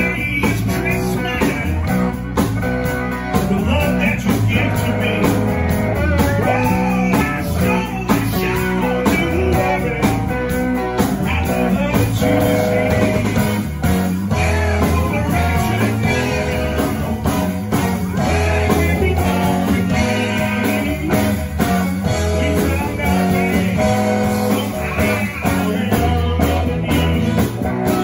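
Live blues-rock band playing loud: electric guitar, bass guitar and drum kit, with a steady beat.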